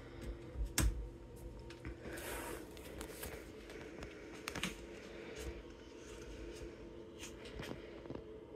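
Plastic gallon vinegar jug being handled as its cap comes off: a sharp plastic click about a second in, then scattered light ticks and rustles, over a faint steady hum.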